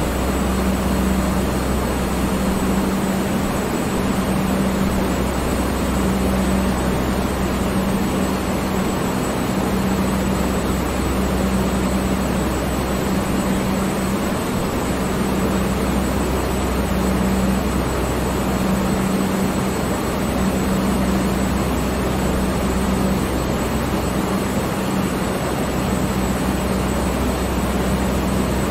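Electric fan running steadily: an even rush of moving air over a low motor hum that swells and fades every few seconds.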